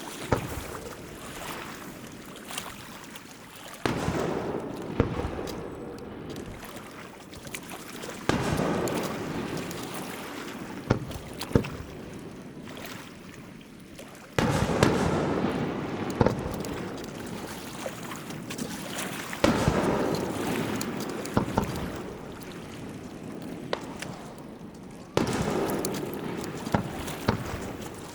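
Aerial fireworks shells bursting: a loud boom every four to six seconds, each trailing off in a long rumbling fade, with sharp cracks scattered between them.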